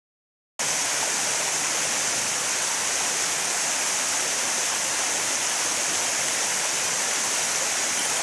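Silence for about half a second, then the steady rush of water pouring over a low concrete weir into a stream pool.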